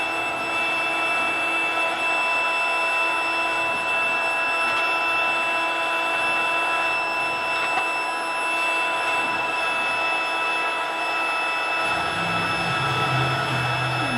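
Electric blower forcing air into a charcoal forge fire: a steady rushing hiss with a constant motor whine, the air blast keeping the coals at forging heat. A deeper hum joins about two seconds before the end.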